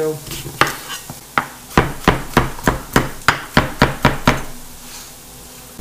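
Chef's knife chopping apple into dice on a plastic cutting board: about a dozen quick knocks of the blade on the board, roughly three a second, stopping about four seconds in.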